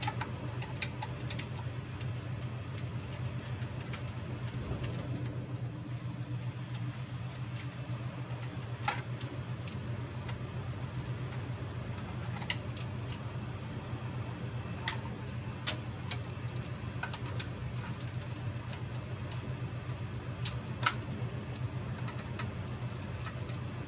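Phillips screwdriver backing screws out of a bill validator's bezel, with scattered light metallic clicks and ticks. The clicks sit over a steady low hum.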